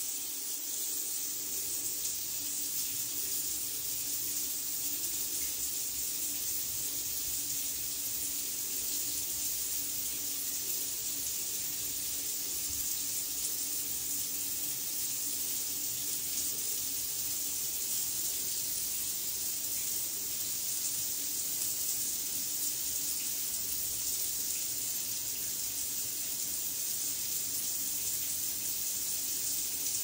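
A steady, even hiss with no distinct calls, starting and stopping abruptly.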